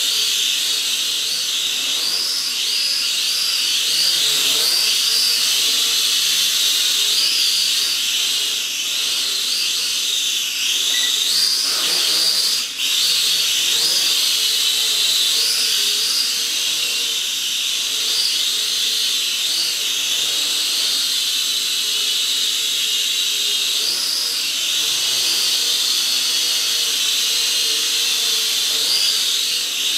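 SKRC Q16 mini quadcopter's motors and propellers whining in flight. The high pitch wavers up and down as the throttle changes, with one brief drop in loudness about halfway through.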